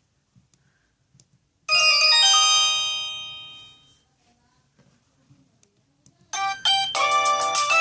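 Samsung E2121B ringtones played through a Sony Ericsson W595 mobile phone's speaker. A quick run of bell-like electronic notes starts a couple of seconds in and rings out over about two seconds. After a pause, another ringtone of fast, repeating notes starts near the end.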